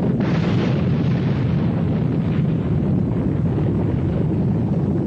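Volcanic eruption: a dense, continuous rumble of explosive activity at a fissure vent, with a rushing burst spreading higher just after the start.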